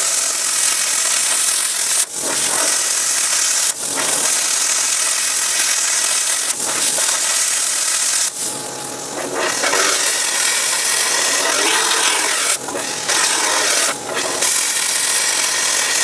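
Plasma cutter cutting notches in steel pipe: a loud, steady hiss that breaks off briefly several times.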